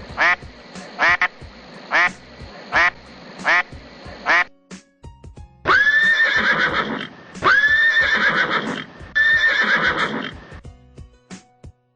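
A duck quacking in a steady series, about one quack every 0.7 seconds. About five and a half seconds in, a horse neighs three times in a row, each a long call.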